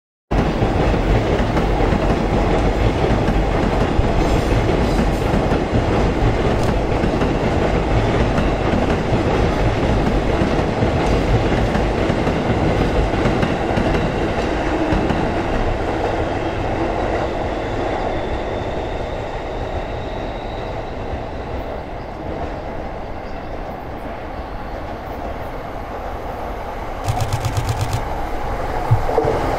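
A train running along the track, steady rolling noise of wheels on rails that cuts in abruptly and eases off somewhat in the second half.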